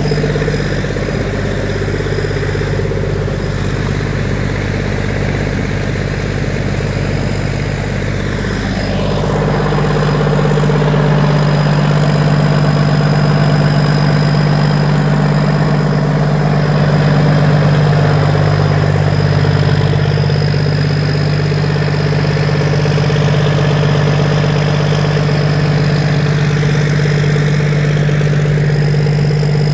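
Cummins N14 inline-six diesel engine running steadily while driving a pair of Gorman-Rupp 10-inch dewatering pumps. About nine seconds in, its note shifts and it gets slightly louder, then holds steady.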